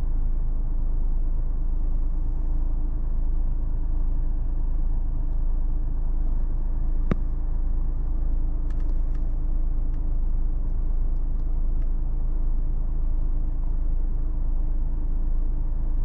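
A steady, low engine hum with no change in pitch, as of a car's engine running. There is a single sharp click about seven seconds in.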